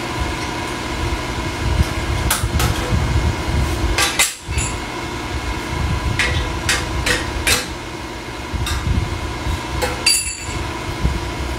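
Sharp metal clanks and knocks as steel exhaust tubing is handled and set into a hydraulic pipe bender, heard over a steady motor hum.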